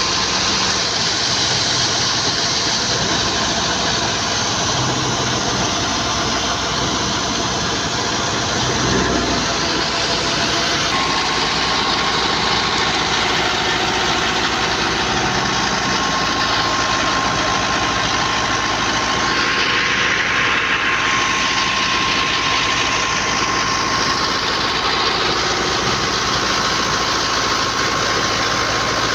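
Wheat thresher running steadily, driven by a tractor engine. It makes a continuous loud machine noise with a thin, constant whine.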